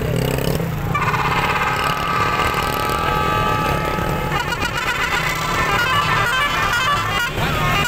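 Vehicle engines running, with a long, steady horn blast from about a second in until past the middle, then wavering, changing high tones until near the end.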